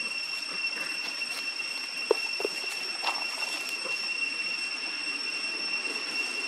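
Steady high-pitched insect drone in forest, typical of cicadas, running evenly throughout, with two short chirps about two seconds in.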